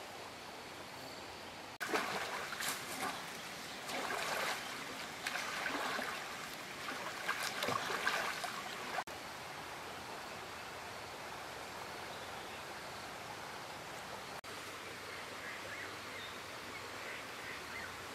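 Stream water flowing and rippling. It is louder and more agitated from about two seconds in to about nine seconds in, then settles to a steady soft rush, and the sound changes abruptly at each of these points.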